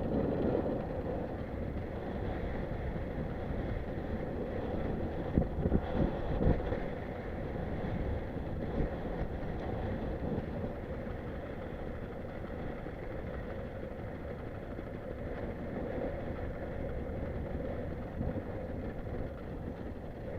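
Fishing boat's engine running steadily, with a few thumps about five to six seconds in.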